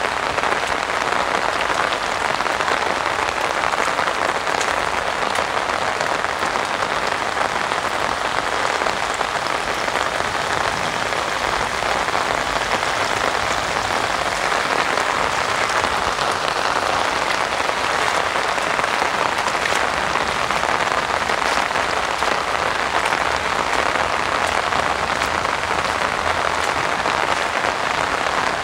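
Heavy rain falling steadily on an umbrella overhead: an even, dense hiss with scattered drop ticks.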